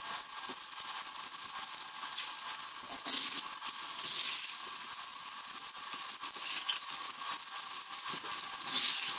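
HANSHI 140A handheld inverter stick welder burning a 2.4 mm electrode on steel angle: the arc gives a steady crackling sizzle, dotted with sharp pops of spatter.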